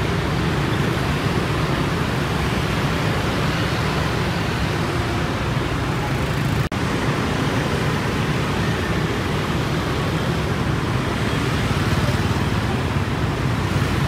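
Dense city street traffic, mostly motorbikes and scooters with some cars, engines and tyres making a steady mixed rumble with no single vehicle standing out. The sound cuts out for an instant about halfway through.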